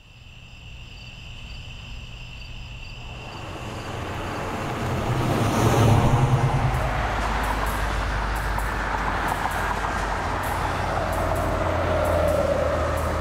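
A car driving at night: engine and tyre noise swell as it approaches, peak about six seconds in as it passes, then settle into a steady engine and road rumble.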